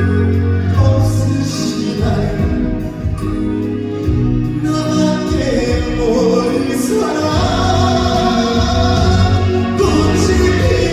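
Live performance of a slow Korean trot ballad: a male singer's voice over band accompaniment, with other voices singing along.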